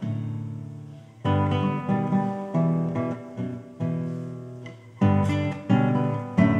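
Solo classical guitar playing full chords, struck roughly once a second, each left to ring and fade before the next.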